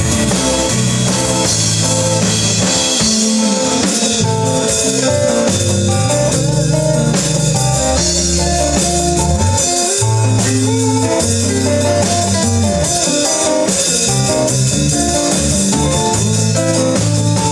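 Rock band playing live: guitar over a bass line and a drum kit with steady cymbals.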